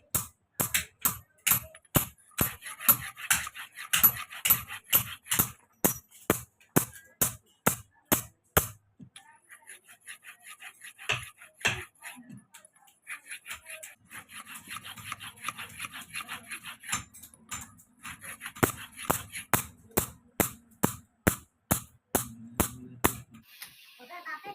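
Blacksmith's hammer striking hot railway-clip steel on an anvil while forging a chisel, in a steady run of sharp ringing blows about three a second. The blows thin out a little after a third of the way in, then resume in a steady run until near the end.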